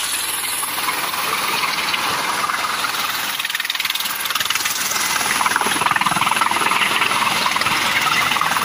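Light turbine helicopter with a ducted tail fan, landing and then running on the pad with its rotor turning: a steady rushing turbine and rotor noise made of rapid fine chopping, a thin high whine, and a slight rise in level about halfway through.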